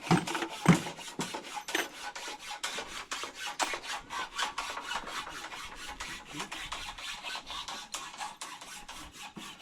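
Hand saw cutting timber: quick, even rasping strokes, several a second, running on steadily.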